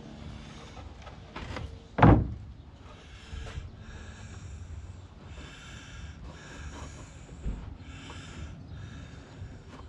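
One loud knock about two seconds in, then a run of short scratchy strokes, about one a second, as a pencil marks a thin wooden strip laid on OSB board.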